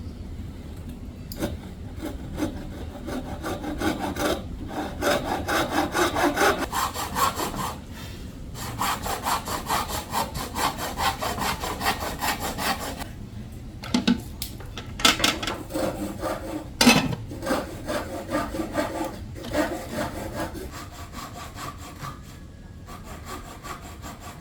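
Handsaw cutting wood in rapid back-and-forth strokes, in several runs broken by short pauses, with a couple of sharp knocks about two-thirds of the way through.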